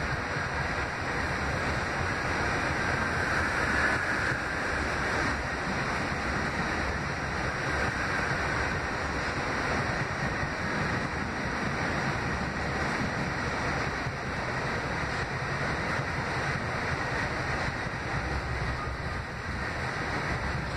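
R68A subway car running at speed, heard from inside: a steady rumble and rush of wheels on rail, with a faint high whine that is strongest about four seconds in.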